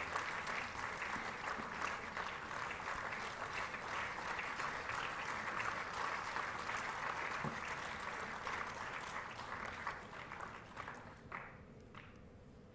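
Audience applauding steadily, dying away about ten seconds in to a few last scattered claps.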